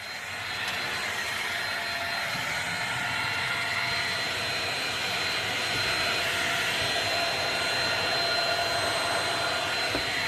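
An electric motor and fan running steadily: an even rushing of air with a thin, constant high whine, swelling in over the first second.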